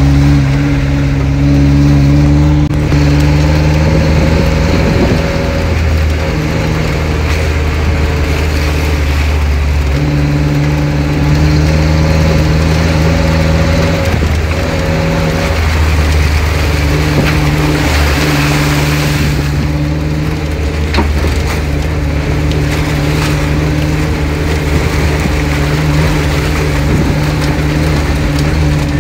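SUV engine running under load as it drives slowly over a muddy, rutted dirt track, its note stepping up and down several times as the throttle or gear changes, with tyres crunching over gravel and mud.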